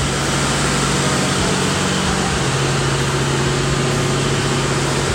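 Steady mechanical hum under a broad, even rushing noise, unchanging throughout.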